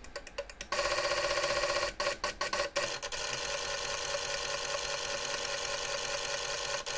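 Xiegu G90's internal antenna tuner relays clicking, then chattering so fast they blend into a steady buzz as the tuner searches for a match on the 160 m band. A run of separate clicks breaks in about two seconds in.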